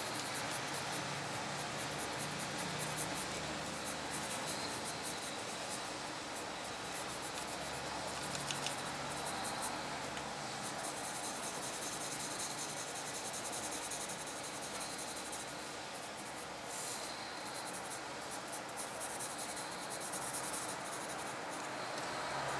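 A coloured pencil hatching on paper: a steady scratching of many quick strokes.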